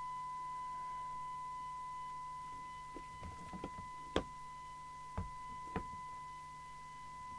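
A steady, high, pure test tone from a CB radio receiver's audio output, the demodulated signal-generator tone used for a SINAD sensitivity test. A few light clicks and knocks come about halfway through as the open radio is handled.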